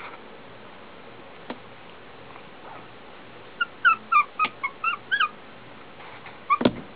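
Young puppies squeaking and whimpering: a quick run of about ten short, high squeaks in the middle, over a steady faint hiss. A single thump near the end.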